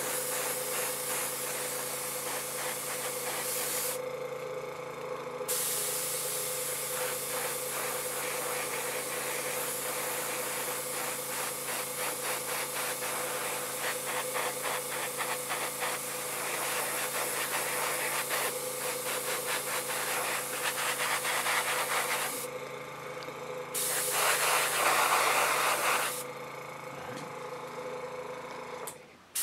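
Paasche double-action airbrush spraying thinned paint in long runs, cutting out briefly about four seconds in and twice more in the last seven seconds, over a steady low hum.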